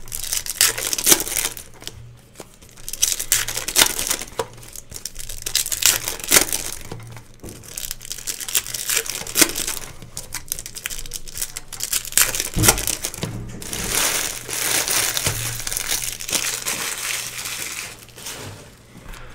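Packaging crinkling and rustling as it is handled, in irregular spells of crackly noise full of small clicks, with a dull thump about two-thirds of the way through.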